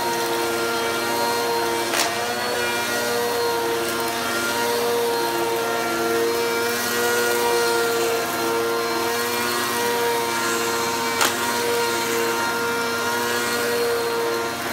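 Upright vacuum cleaner running steadily on a shag rug, its motor giving a constant hum over the rush of suction. Two sharp clicks come about 2 seconds in and near 11 seconds.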